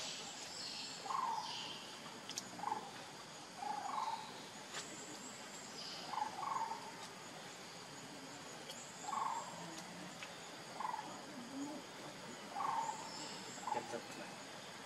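Short, soft animal calls repeated roughly once a second, over a steady high-pitched insect drone.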